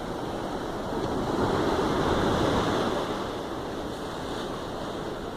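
Pacific Ocean surf at a beach: a wave builds about a second in, rushes loudest for a couple of seconds, then fades back to a steady wash.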